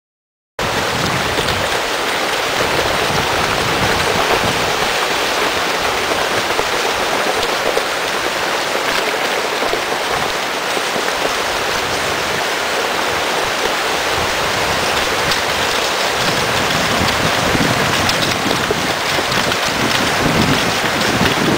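Steady rushing noise of a fast-flowing river, starting abruptly about half a second in, mixed with dry leaves crunching under a wheeled dog cart and footsteps.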